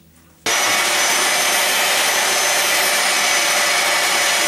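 Electric meat grinder with a sausage-stuffing nozzle running steadily, its motor whining as it pushes mince into a collagen casing. The motor starts suddenly about half a second in.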